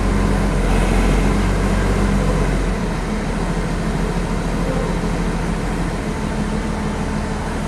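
Heavy vehicle engine running steadily under road noise, its low drone easing off about three seconds in.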